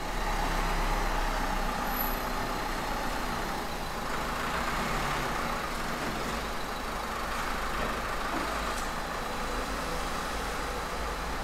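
Dacia Duster SUV's engine running steadily as the car is driven and manoeuvred through an underground car park, heard as a steady rumble and hiss off the concrete.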